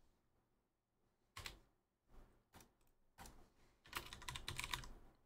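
Typing on a computer keyboard: a few scattered keystrokes, then a quick run of keys about four seconds in.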